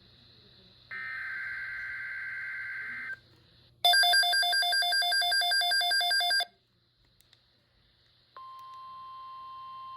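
The last buzzy digital burst of an EAS/SAME alert header plays about a second in. From about four seconds in, a loud, rapidly pulsing electronic alarm beeps for about two and a half seconds. Near the end, NOAA Weather Radio's steady 1050 Hz warning alarm tone begins, announcing a new weather alert.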